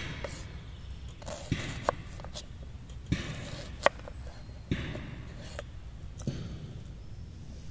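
Large kitchen knife dicing an onion on a wooden cutting board: a short crunch as the blade goes through the onion, then a sharp knock of the blade on the board, about eight cuts at uneven spacing.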